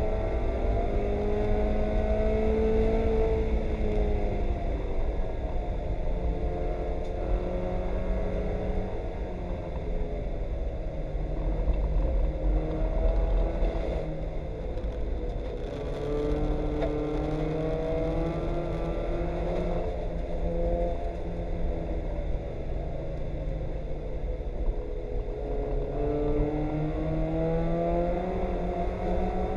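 Mazda Miata race car's four-cylinder engine heard from inside the cabin, its pitch climbing and dropping several times as it accelerates and slows for corners, over a heavy low rumble.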